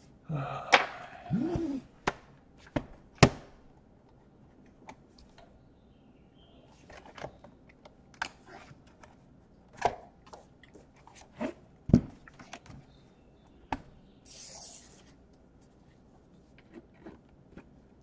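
Plastic laptop being handled on a tabletop: scattered sharp knocks and clicks, a second or more apart, as it is turned over and set down. A brief pitched, gliding sound comes about a second in, and a short high scrape near the end.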